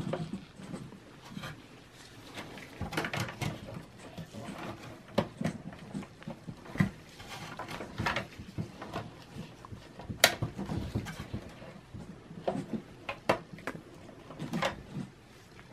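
Handling noise of gloved hands working inside a desktop computer's sheet-metal chassis: scattered light clicks, taps and rustles as the power supply and its cables are moved and seated. One sharp click stands out about ten seconds in.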